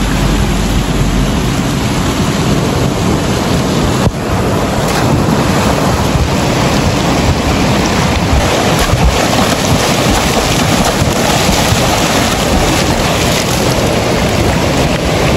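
Fast-flowing mountain river rushing over rocks and small rapids: a loud, steady wash of white-water noise, with a brief drop about four seconds in.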